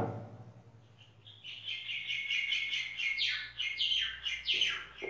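Whiteboard marker squeaking against the board as words are written: a run of short, high squeaks starting about a second in and lasting about three and a half seconds, some sliding down in pitch.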